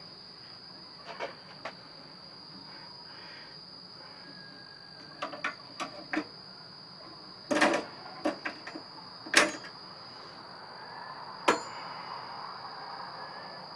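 Scattered metallic clicks and knocks from handling a steel 330 conibear trap clamped in a vise while cord is threaded through it; a sharp knock about two-thirds of the way through is the loudest. A steady high-pitched tone sounds in the background throughout.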